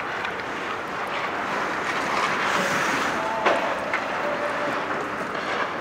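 Ice hockey practice rink sound: skate blades scraping and carving on the ice as a steady hiss, with one sharp puck impact about three and a half seconds in.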